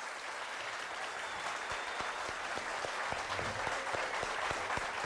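Studio audience applauding steadily, many hands clapping.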